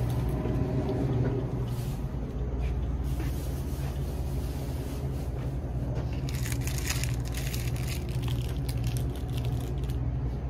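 A steady low hum, with crinkling and rustling noises that grow thickest about six to seven seconds in.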